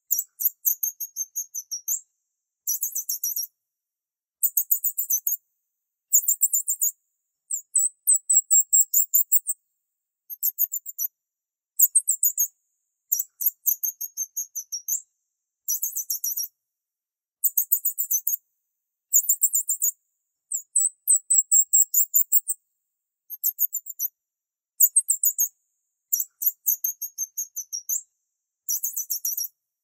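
High-pitched chirping trills, each a quick run of rapid pulses lasting up to about a second, repeating about every two seconds with silent gaps between them. They sit far above the low pitch of pigeon cooing.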